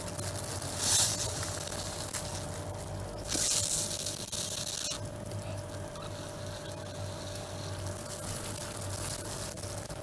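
Air being sucked out of a plastic freezer bag of diced tomatoes through a drinking straw: breathy hissing draws, strongest about a second in and again from about three to five seconds in, over a faint steady hum.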